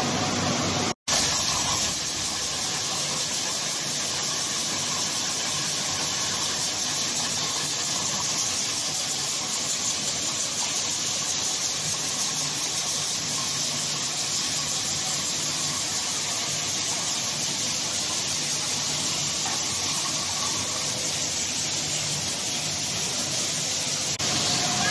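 Carbonated-water PET bottle filling line running: a steady, loud hiss and rush of machinery. It cuts out for an instant about a second in.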